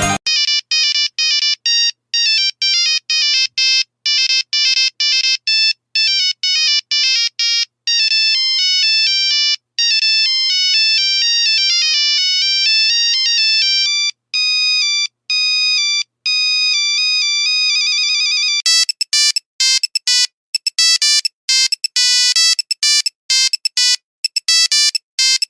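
Nokia mobile phone ringtone melodies: a monophonic tune of quick, clear electronic beep notes, one pitch at a time, with short gaps between them. About three-quarters through comes a fast trill, after which the notes come in shorter, quicker runs.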